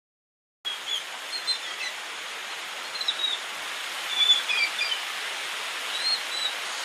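Small birds chirping in short high notes over a steady rushing hiss, which cuts in abruptly about half a second in.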